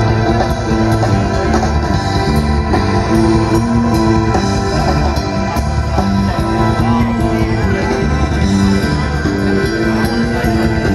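Live band music over an outdoor concert sound system, heard from within the crowd: a repeating bass line with drums and guitar, loud and steady.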